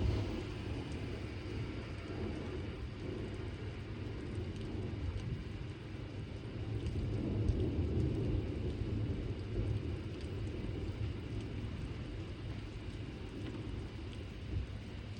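Heavy thunderstorm rain falling steadily, under a low rumble that swells around the middle.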